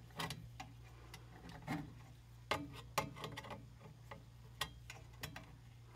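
Screwdriver tip clicking and scraping against the screws of a furnace's low-voltage terminal strip in irregular sharp clicks, the loudest two a little past halfway. A steady low hum from the 24-volt control transformer runs beneath.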